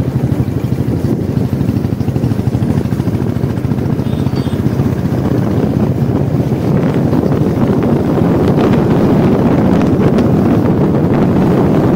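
Wind buffeting the microphone over the steady drone of a moving vehicle, a rough rushing noise that grows a little louder about halfway through.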